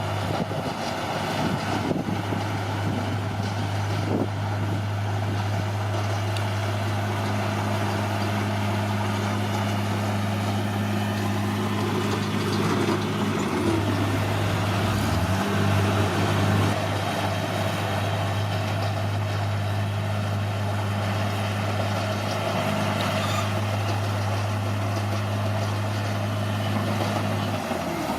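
Bulldozer's diesel engine running steadily under work. Its pitch sags briefly and comes back up about halfway through and again near the end.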